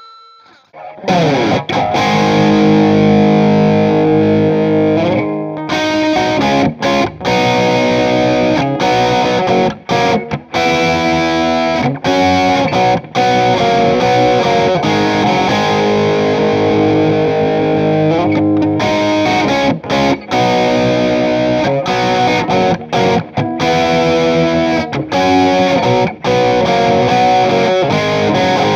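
Les Paul-style electric guitar played through a Marshall Silver Jubilee 2525H valve amp with a distorted tone, playing riffs and lead lines. It comes in about a second in and pauses briefly between phrases.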